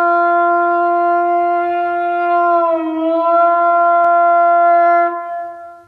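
A horn blown in one long held note. Its pitch sags slightly about three seconds in, and it fades out near the end.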